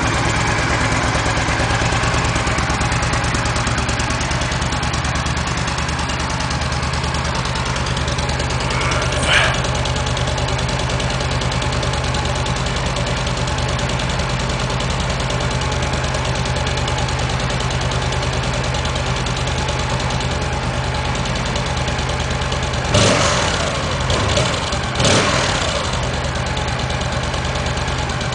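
Yamaha XVS1300 Midnight Star's 60-degree V-twin idling steadily through its stock, undrilled exhaust, just after a start, with a brief louder moment about nine seconds in and a few more near the end.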